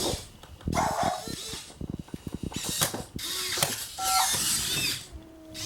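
Toy robot dog's small gear motor clicking rapidly as it moves. The clicking is mixed with short bursts of electronic sound effects and a brief beep from its built-in speaker.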